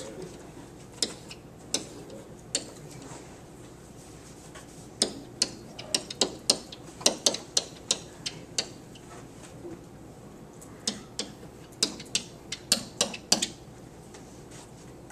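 Pen tip tapping and clicking against a classroom board while an equation is written out: a few scattered taps, then two quick runs of sharp taps.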